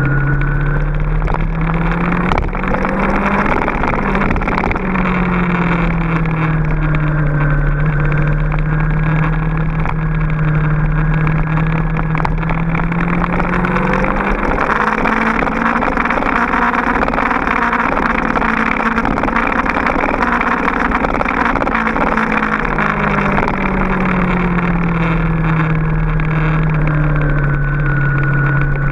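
Honda VFR800FI's V4 engine running under load, its note climbing in the first few seconds and again about halfway through, then easing back down near the end, with a steady rush of wind over it.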